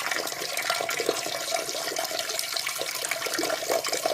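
Peeing sound effect: a steady stream of liquid splashing into toilet water.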